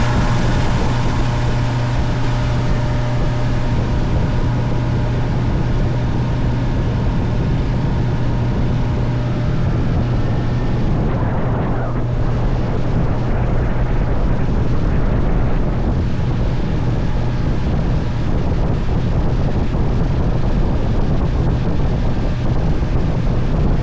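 Motorboat engine running at a steady low hum while the boat moves, with wind rushing over the microphone.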